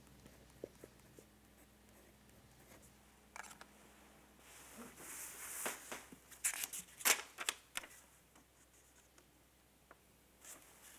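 Paper and pen handling at a desk: faint pen taps and small clicks, then a cluster of crisp paper rustles and clicks about five to eight seconds in, as the signed bank form is handled.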